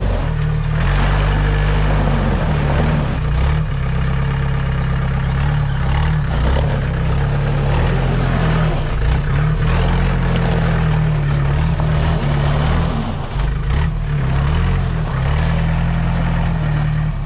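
Off-road vehicle's engine labouring as it crawls up a rocky track, with frequent knocks and rattles from the vehicle jolting over rock.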